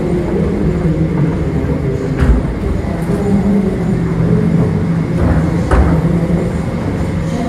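Westinghouse escalator running: a steady low hum from its Baldor drive motor and step machinery, with dull knocks about two seconds in and again near six seconds.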